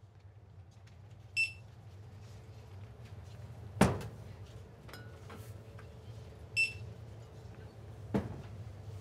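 Checkout barcode scanner beeping twice, short high beeps a few seconds apart, as bottles are scanned. Two sharp knocks, the louder at about four seconds in, sound over a steady low hum.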